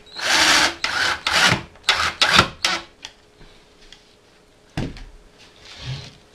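Wood being scraped or rasped by hand: about six quick, uneven strokes in the first three seconds, then a single knock about five seconds in.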